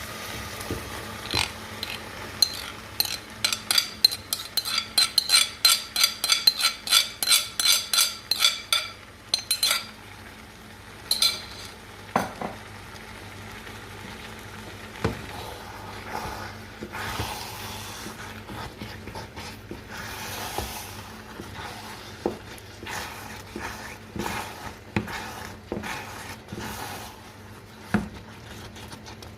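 Utensil stirring a pot of curry with beans just added, clinking and scraping against the pot about two to three times a second with a metallic ring. About ten seconds in, the clinks stop and give way to slower scraping with an occasional knock.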